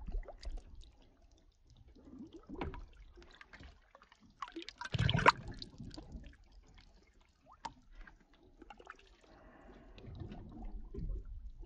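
Water splashing and sloshing as a large stone bass is held by the jaw in the sea at the side of the boat, with a louder splash about five seconds in and more sloshing near the end.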